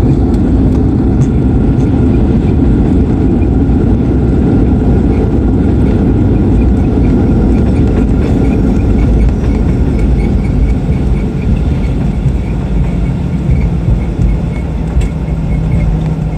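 Airliner cabin noise during landing: a loud, steady rumble that eases somewhat after about ten seconds, with a low steady hum coming through near the end.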